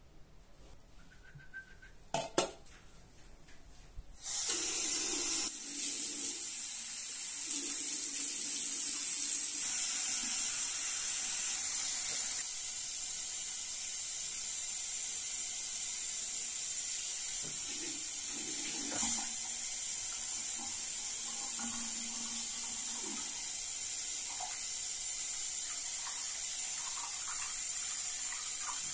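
A tap running steadily into a bathroom sink, the stream splashing over a small puppy as it is washed. Before the water starts, about two seconds in, there is one sharp clink.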